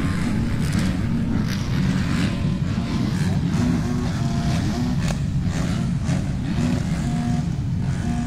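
Many motocross bike engines running and revving together as a field of race bikes gets under way.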